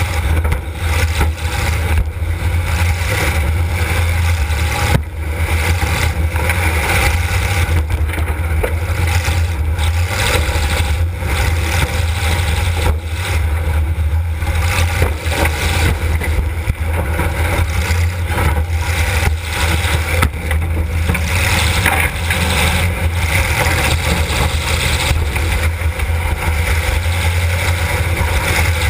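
Demolition derby car's engine running loud and steady with a deep low rumble, heard from inside the car, and a sharp knock about five seconds in.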